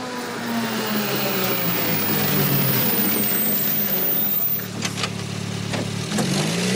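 Open military jeep's engine running as it drives up and slows, its pitch falling over the first few seconds, then rising again near the end. A few sharp clicks sound about five seconds in.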